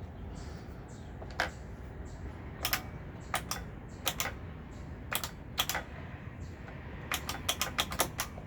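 A run of sharp clicks and taps from handling a Dirt Devil multi-surface vacuum that won't start. The clicks are scattered at first and come in a quick flurry near the end.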